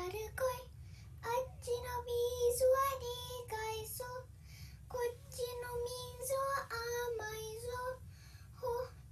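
A young girl singing solo without accompaniment, holding long notes in phrases with short breaths between them.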